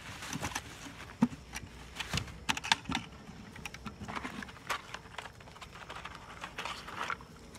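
Rummaging by hand in a wooden box: irregular light clicks, knocks and rustles as items are moved about inside it and a cloth bag is shifted.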